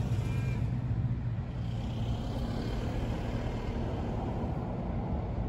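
Cars driving past on a road: a deep engine note fading away in the first second, then a steady, quieter engine and tyre sound as another car goes by.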